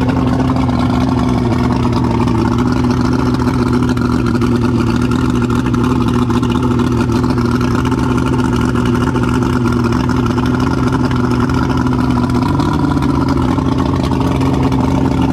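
1999 Mercury SportJet 175XR2 V6 two-stroke engine running steadily on a test stand with its ignition timing freshly set, its speed rising slightly about twelve seconds in.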